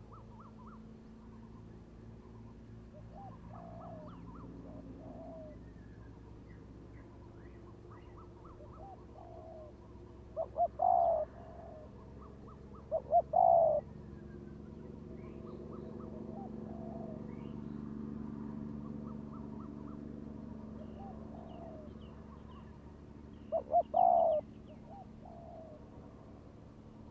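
Spotted doves cooing back and forth. There are three loud close calls, about ten seconds in, about thirteen seconds in and near twenty-four seconds. Each is a couple of short notes running into a longer coo, with fainter cooing between them. A low steady hum swells in the middle, and small birds chirp faintly.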